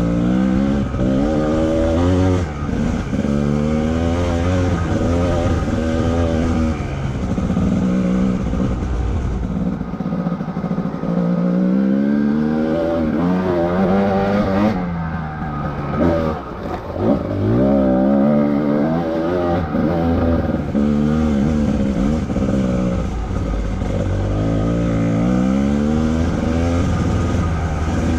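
Dirt bike engine, heard from on the bike, revving up through the gears and dropping back as the rider shifts and works the throttle. The pitch climbs and falls over and over every few seconds, with a brief let-off about two-thirds of the way through.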